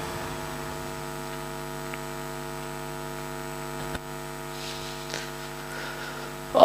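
Steady electrical hum held on several even tones, with a faint click about four seconds in.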